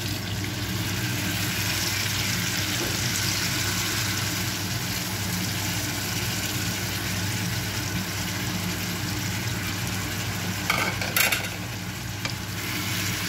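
Sauce poured into a hot frying pan of pork, potatoes and carrots, sizzling steadily over a steady low hum. A short clatter comes near the end.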